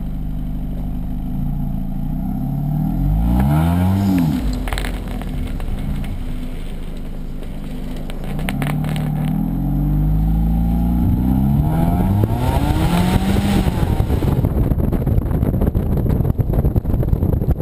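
Hyundai Elantra's four-cylinder engine through its stock exhaust with a test pipe in place of the second catalytic converter, heard as the car pulls away. The revs rise and fall about three seconds in, then climb again through a longer pull from about eight to thirteen seconds. Near the end wind rushing over the microphone takes over as the car gathers speed.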